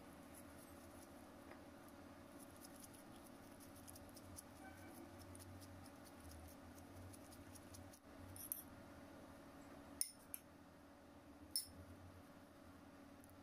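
Near silence with faint crinkling from a plastic sheet and gloved hands working soft rice dough, broken by three short sharp clicks in the second half.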